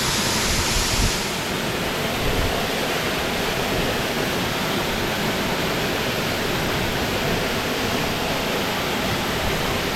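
Steady rush of a waterfall, an even wash of falling water that dulls slightly about a second in, with a couple of faint knocks in the first few seconds.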